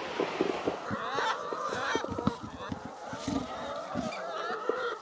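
A flock of laying hens calling and squawking over one another, with many short knocks underneath.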